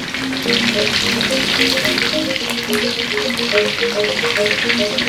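Bone-in chicken thighs deep-frying in hot oil in a steel wok: a steady, dense crackling sizzle. A light background music melody plays underneath.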